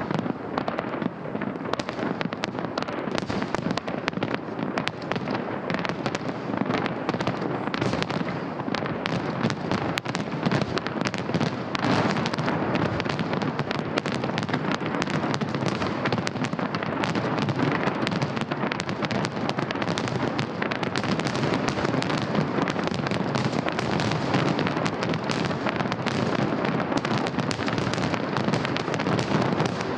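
Festive fireworks salute: a dense, unbroken stream of bursts and crackles that stays at an even loudness.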